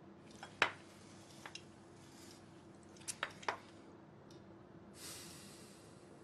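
Faint clinks and clicks of chopsticks against plates and bowls during a meal: a few light, separate clicks, the sharpest about half a second in and a close pair a little past halfway, then a brief soft hiss near the end.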